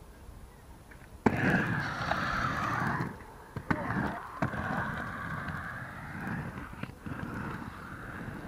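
Inline skate wheels rolling over a concrete skate bowl: a sharp clack about a second in, then a rough rolling rumble broken by a few more knocks.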